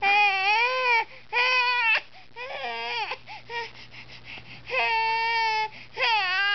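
Baby crying in a string of about five high-pitched wails, each under a second long with short breaks between them. The last wail falls in pitch.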